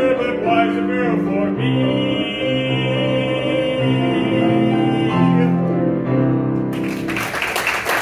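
A man's voice singing the last words of a Broadway show tune over piano, holding a long final note while the piano plays closing chords. About seven seconds in, audience applause breaks out.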